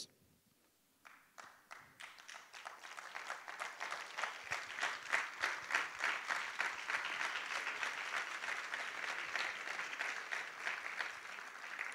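Audience applauding: a few scattered claps about a second in, swelling into steady applause that thins out near the end.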